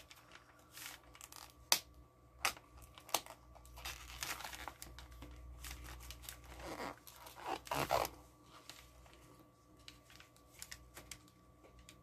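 Crinkly brown paper and a plastic deli-cup lid handled while its tape is picked and peeled off: scattered clicks and crinkles, with longer tearing sounds about four seconds in and again around eight seconds.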